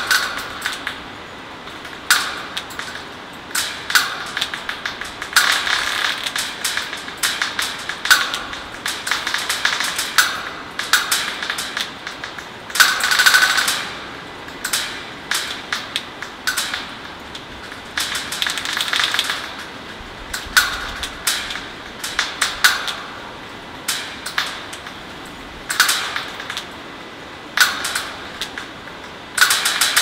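Robotic woodpeckers pecking on metal: rapid, irregular runs of sharp taps with short pauses, some strikes ringing on briefly. The pecking patterns are driven by the surrounding electromagnetic radiation from phone and wireless internet signals.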